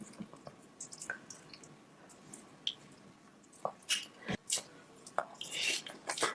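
Close-miked wet eating sounds of saucy seafood and corn: sticky squishes, mouth smacks and small clicks. They come in irregular bursts, loudest about four seconds in and again just before the end.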